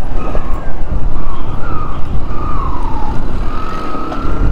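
Motorcycle engines running on a dirt track, with a whining note that rises and falls in pitch as the throttle changes. Heavy wind rumble on the camera microphone sits underneath.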